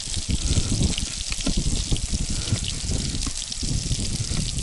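Potatoes frying in a cast-iron pan on a portable gas stove: a steady sizzle with small crackles, over a low, uneven rumble.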